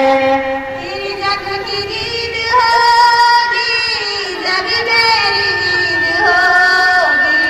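Young female voices singing together through a PA system: a slow vocal chant with long held notes that slide between pitches.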